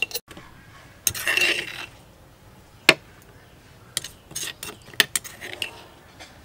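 Scattered sharp clinks and knocks of kitchen utensils, with a short scraping rustle about a second in. The loudest knock comes about three seconds in, and a quick run of lighter clinks follows around four to five seconds.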